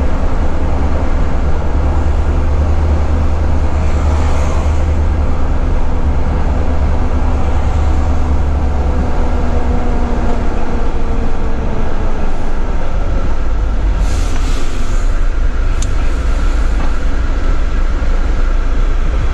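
Volvo FH12 truck's diesel engine running steadily at road speed, heard from inside the cab as a constant low drone with road noise.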